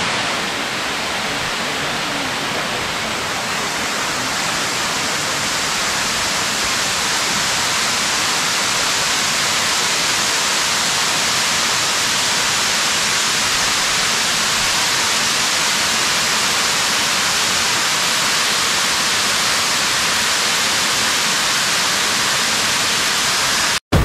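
Waterfall dropping into a sinkhole: a steady, even rush of falling water that cuts off abruptly near the end.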